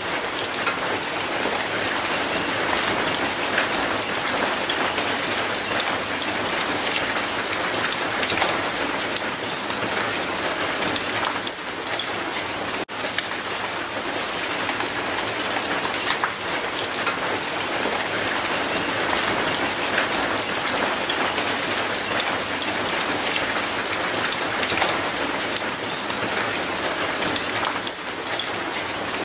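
Steady rain falling on paving, a dense patter of drops splashing on the hard wet ground.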